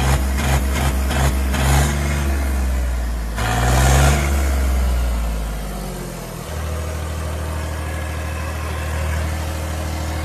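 John Deere 5210 tractor's diesel engine blipped in quick repeated revs, about two to three a second, through a newly fitted straight steel side exhaust pipe, then given one longer rev that falls back to a steady idle about six seconds in. The revving is a test of the exhaust note from the new pipe.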